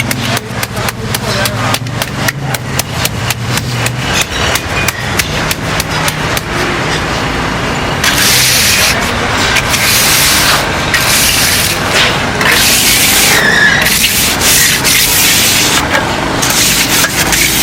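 A hand tool scraping over a concrete surface in quick, even strokes, about four a second. About halfway through this gives way to a steady, louder rushing noise.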